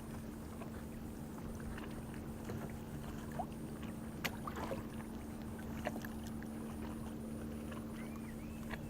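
Kayak on the water during a fish fight: low water and hull noise with a few scattered light knocks and ticks, over a steady low hum.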